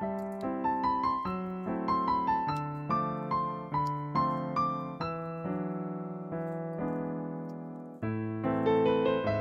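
Solo piano background music: a gentle melody of struck notes, settling on a held chord for a few seconds before the playing picks up again near the end.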